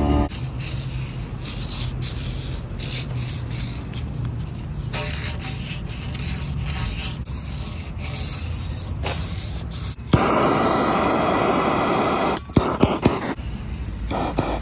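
Scraping and hissing from work on copper pipe, in short cut-together clips. A louder rush of noise comes about ten seconds in, and a few sharp clicks follow near the end.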